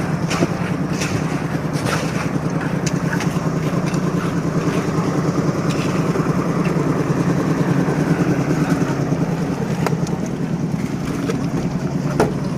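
An engine running steadily with a fast, even pulse, with a few sharp knocks over it, about half a second in, near ten seconds and just before the end.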